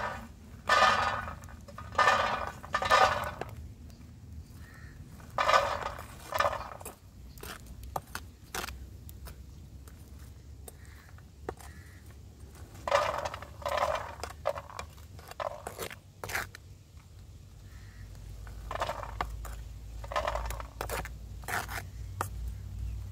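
Repeated scraping strokes of sand and peanuts being stirred in a pan for roasting. The strokes come in groups, with a lull in the middle.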